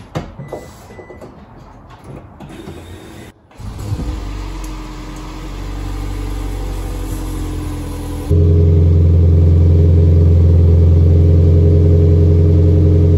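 2005 Toyota Prius's 1.5-litre four-cylinder engine running, heard at the tailpipe through a new replacement muffler as a steady, smooth machine sound from about four seconds in. About eight seconds in it switches abruptly to the same engine with a straight pipe in place of the muffler: much louder, deep and throaty, with a strong low hum.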